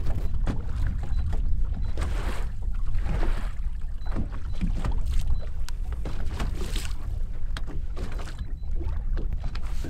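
Wind noise on the microphone, with a steady low rumble, and small waves splashing against a bass boat's hull every second or so.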